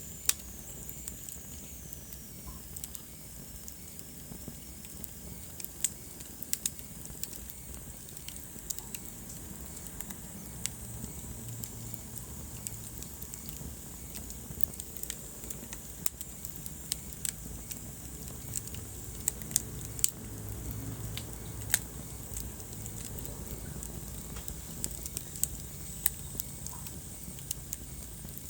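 Wood fire crackling in a fireplace: irregular sharp pops and snaps, a few louder than the rest, over a low steady rumble of the burning logs.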